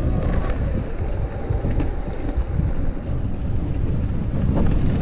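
Steady wind buffeting on the microphone mixed with tyre noise from an e-bike rolling over a rough dirt path, with a few light knocks from bumps, the clearest near the end.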